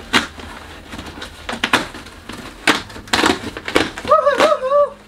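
Cardboard shipping box being torn open by hand: packing tape ripping and cardboard flaps crackling in several irregular bursts, with a short wavering pitched squeal near the end.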